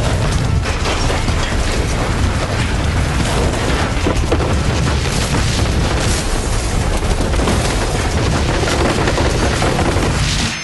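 Earthquake: a loud, steady deep rumble of the ground shaking, with many sharp cracks and rattles running through it.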